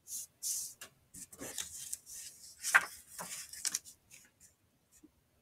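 Paper rustling and crinkling as a page of a thin paperback picture book is turned and smoothed flat by hand: a run of irregular rustles and rubs, loudest about three seconds in, dying away after about four seconds.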